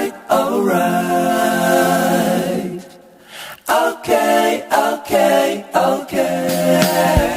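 Background music of unaccompanied voices singing in harmony, holding long notes, with a short break about three seconds in.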